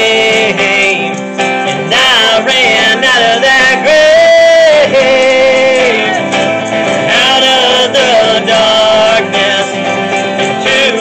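A man singing a worship song while strumming an acoustic guitar, holding long notes in places.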